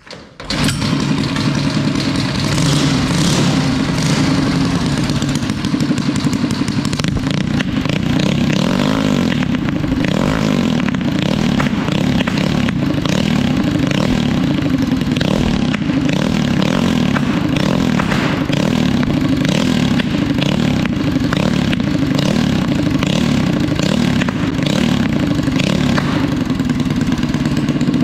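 Harbor Freight Predator 212 Hemi single-cylinder engine, built with a hot cam and a straight pipe, catching on a recoil pull about half a second in and then running steadily, its speed wavering a little.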